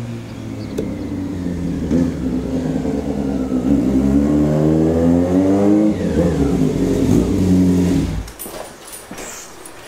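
Motorcycle engine running as the bike rides up, its pitch rising with the throttle from about three and a half seconds in, then holding steady. The engine stops suddenly near the end, followed by a few light clicks and knocks.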